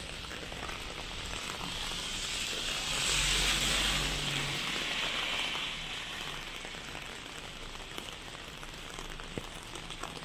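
Heavy rain falling on a wet city street: a steady hiss that swells to a louder rush about three seconds in and eases off again by about six seconds, with a few scattered sharp ticks of drops.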